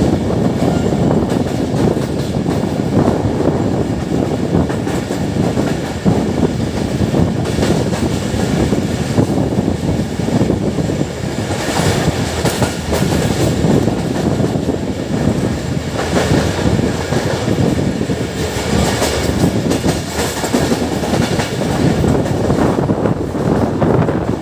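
Passenger train coaches running at speed, heard from an open doorway: a steady rumble of wheels on the rails with clickety-clack over the rail joints.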